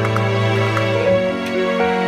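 Background music: an instrumental of held notes over a steady low bass note, the melody changing every half second or so.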